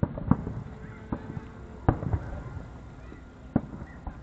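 Aerial fireworks shells bursting: several sharp bangs at uneven intervals, the loudest a little under two seconds in.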